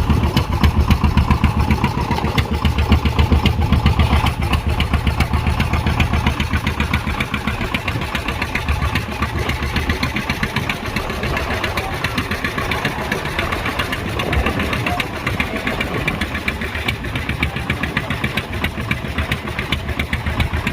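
Engine running steadily with a rapid, even chugging beat, a little quieter after about four seconds.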